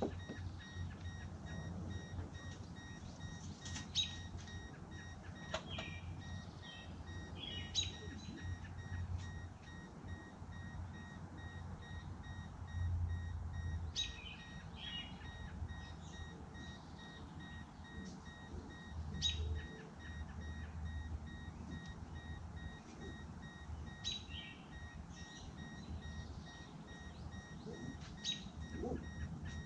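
A car's open-door warning chime beeping on and on in a quick even rhythm, as it does while the doors stand open. A few short bird chirps come through now and then over a low rumble.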